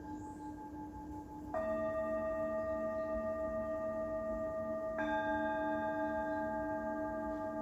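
Singing bowls ringing: one is struck about a second and a half in and another about five seconds in, each ringing on with several steady overtones and a low wavering hum beneath.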